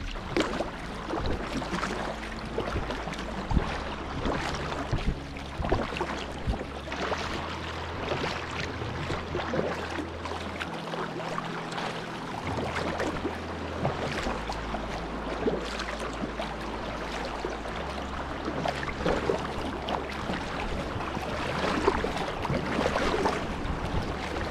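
Sea kayak being paddled: the Werner paddle blades dip and splash into the lake on alternating sides at a steady pace, with water washing along the hull.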